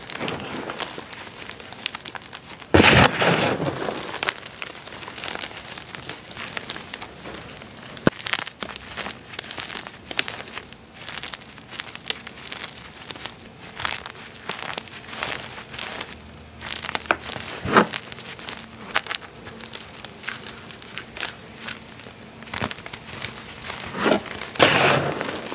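Crushed blocks of gym chalk squeezed and crumbled by hand in a heap of chalk powder: a dense, crackly crunching and crumbling, with louder crunches about three seconds in and again near the end.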